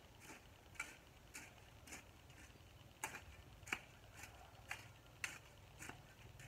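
Hoe blade chopping into garden soil: a string of faint, sharp ticks at an uneven pace, roughly one or two a second.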